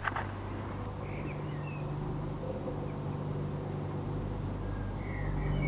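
Low steady engine hum that grows louder in the last couple of seconds, opening with one sharp click, with a few faint high chirps.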